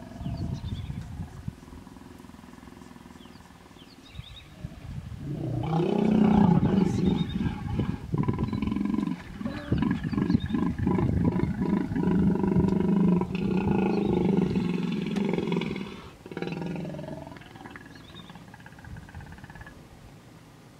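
Hippopotamus calling in a long run of deep, pulsing grunts from about five seconds in until about sixteen seconds, quieter before and after. It is a threat call from a hippo defending her young during a confrontation.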